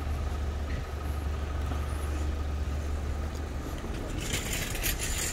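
A motor vehicle's engine runs steadily close by with a low rumble, over street noise. About four seconds in, a loud hiss starts up.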